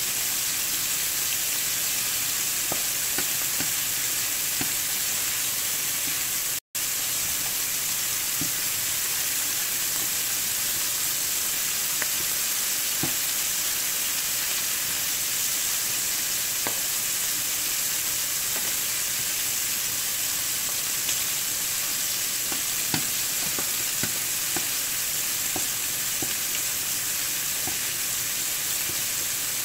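Shrimp sizzling as they brown in hot grease in a stainless steel pan: a steady frying hiss, with scattered light clicks of metal tongs against the pan as they are turned. The sound cuts out for an instant about seven seconds in.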